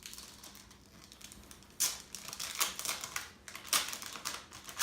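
Plastic packaging crinkling and crackling in irregular sharp clicks as it is handled, starting about two seconds in.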